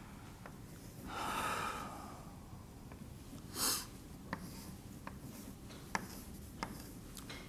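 Chalk tapping on a blackboard while a diagram is drawn, a few sharp taps in the second half. There is also a loud breath through the nose about a second in and a short sniff near the middle.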